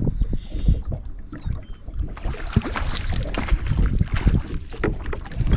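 Wind buffeting the microphone and water slapping against a small fishing boat, with irregular knocks. From about two seconds in there is a denser spell of splashy noise.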